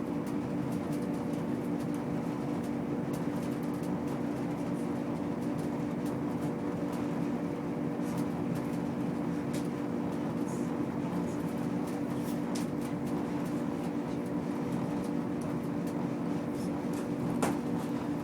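Train running, a steady low hum with a few faint scattered clicks.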